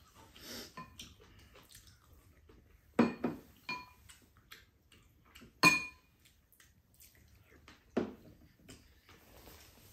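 Chopsticks and spoons clinking against ceramic bowls and a cooking pan during a meal: a handful of sharp clinks, each with a short ring, the loudest about three seconds in and just before six seconds, with fainter taps between.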